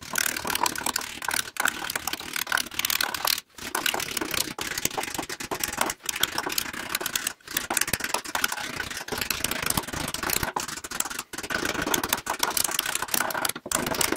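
Rapid, steady taps of a small hammer on thin brass sheet, forming it cold over a wooden hammer form.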